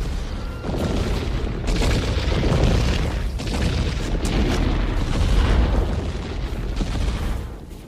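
Film destruction sound effects: dense, continuous rumbling layered with repeated explosion booms and crashes, fading away near the end.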